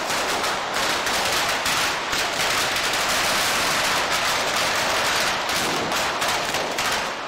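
Firecrackers set into a falla exploding in a dense, unbroken rapid-fire crackle, like a machine gun, before stopping abruptly at the end.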